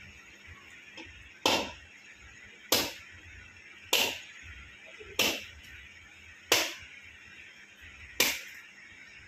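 Six sharp striking blows, about one every second and a bit, each dying away quickly, from work at the base of a flagpole.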